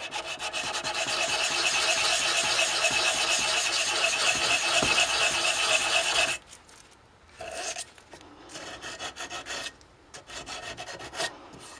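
Hand file scraping across the steel foot of a kickstand clamped in a vise. Fast continuous strokes for about six seconds, then a few lighter, scattered strokes: the end that touches the ground is being shaped.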